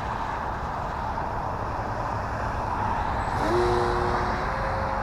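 Wind rumbling on the microphone over the distant hum of an RC plane's electric motor and propeller, here an E-flite T-28 Trojan in a knife-edge pass. About three and a half seconds in, a whine rises in pitch and then holds steady.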